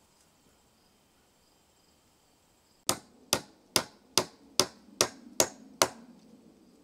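Eight sharp strikes of a hand tool on wood in quick, even succession, about two a second, starting about three seconds in, with faint insects buzzing underneath.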